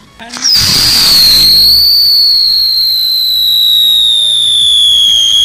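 Whistling spinner firework (chakri) spinning: one long, loud whistle that starts suddenly about half a second in with a rush of hiss, then slowly falls in pitch.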